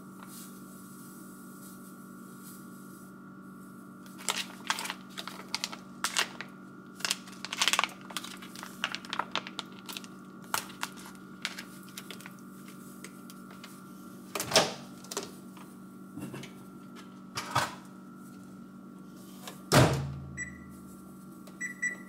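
Kitchen handling sounds: scattered clicks and knocks and a plastic bag being handled, over a steady hum. About twenty seconds in there is a loud thump, then a few short electronic beeps as buttons on the over-the-stove microwave's control panel are pressed.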